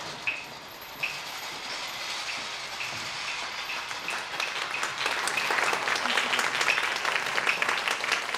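A stage curtain is drawn open with a steady swish. Over it comes a run of sharp clacks that gradually come faster, and from about halfway through, audience applause builds.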